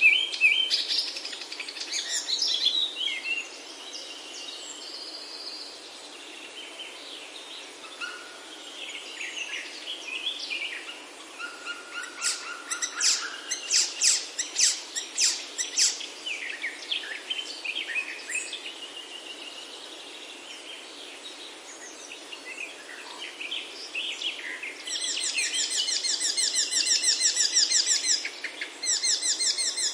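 Several birds singing: scattered chirps, short whistled notes and trills. Near the end comes a fast, even trill that lasts several seconds.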